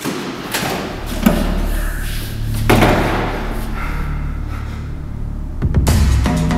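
Double doors banging and slamming, heavy thuds about half a second in, just over a second in and loudest nearly three seconds in, over a low steady drone. Near the end a dramatic music score with drum hits comes in.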